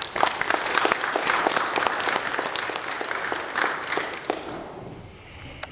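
Congregation applauding, a dense patter of clapping that dies away near the end.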